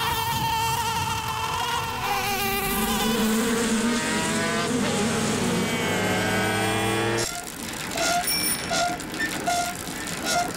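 A swarm of bees buzzing past fast, several wavering, engine-like drones at once. About seven seconds in the buzzing stops and short tones repeat roughly twice a second.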